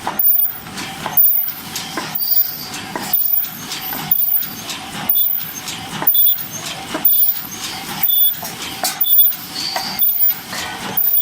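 Open-cam paper cup making machine with an ultrasonic heater running at production speed. It repeats a regular mechanical cycle about once a second, with clatter and short hissing bursts on each stroke.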